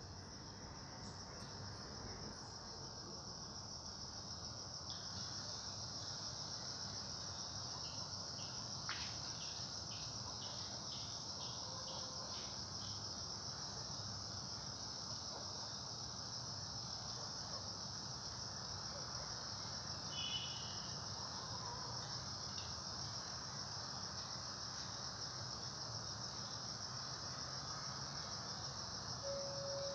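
Crickets chirring in one continuous high trill over a steady low background hiss. A few faint ticks come through in the first half, and a steady low tone comes in just before the end.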